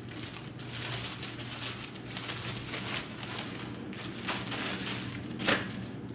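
Clear plastic packaging crinkling and rustling as a bagged shirt is handled and turned over, with one sharper crackle near the end.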